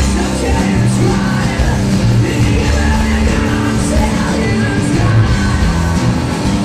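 Live hard rock band playing loudly: electric guitars, bass and drums, with a singer's voice over them, heard from the audience.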